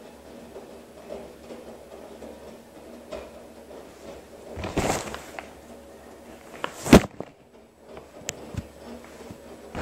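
Girbau commercial front-load washer drum turning during a hot wash, with wet laundry and soapy water sloshing over a low steady hum. A swell of sloshing comes about five seconds in, and a sharp thump just before seven seconds.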